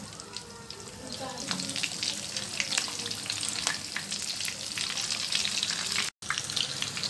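Samosas deep-frying in oil in a karahi on a low flame, with a continuous sizzle full of small crackles and pops. The sound cuts out briefly about six seconds in.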